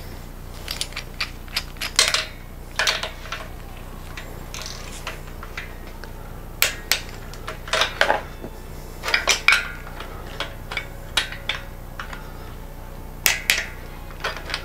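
Metal hand tools clinking and clanking in irregular sharp strikes over a low steady hum: a hex socket and wrench being worked onto the cylinder-head studs of a Porsche 911S flat-six engine.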